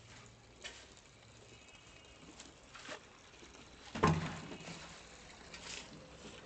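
Building-site ambience: scattered scrapes and knocks, the loudest a single thump about four seconds in.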